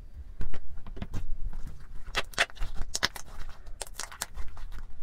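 Homemade green slime being stretched and squeezed by hand, making irregular sticky clicks and crackles, several a second, thickest about two to three seconds in.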